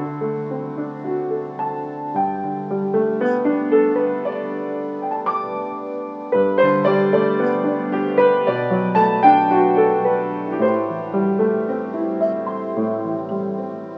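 Background piano music: slow held chords that change every two seconds or so.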